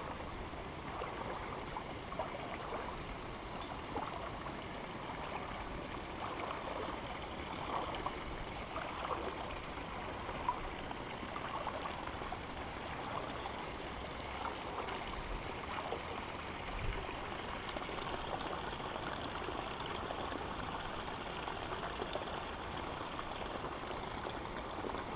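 Shallow river water flowing and gurgling steadily close to the microphone, with small irregular gurgles and light splashes throughout.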